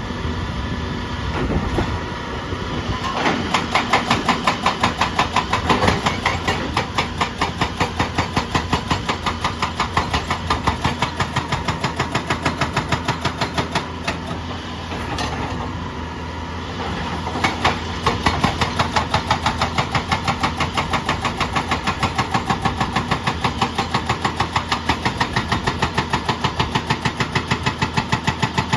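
Excavator-mounted hydraulic breaker hammering in a rapid, even stream of blows over the running engine. It pauses for a couple of seconds partway through, then starts hammering again.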